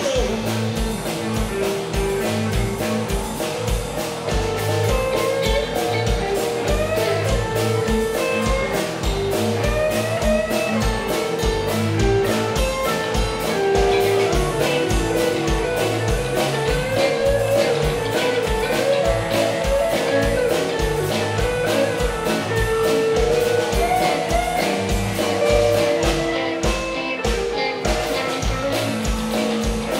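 Live rock band of electric guitars, electric bass and drum kit playing a blues-rock song with a steady beat and guitar lines but no vocals, an instrumental passage.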